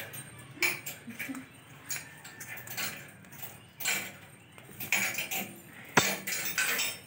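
Thin metal chain on a pet monkey's collar rattling and clinking as the monkey scrambles and is grabbed, with a sharp knock about six seconds in.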